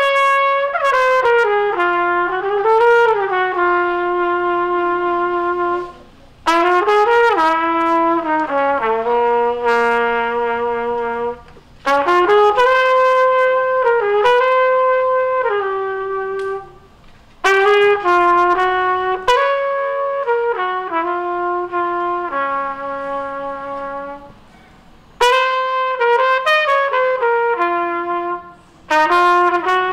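Unaccompanied trumpet playing a slow melody of long held notes and slurred steps, in phrases broken by short pauses about every five to six seconds.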